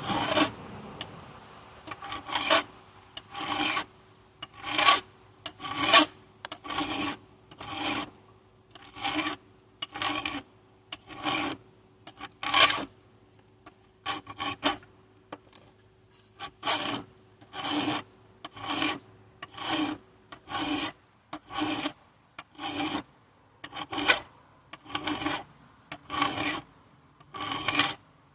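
A steel file drawn by hand across the teeth of a chainsaw chain, one short stroke about every second in a steady rhythm.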